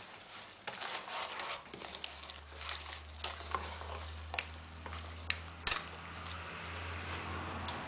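A spatula stirring crab and greens in a hot pot, scraping and knocking against the pot's sides over a light sizzle. A low steady hum runs underneath from about two seconds in.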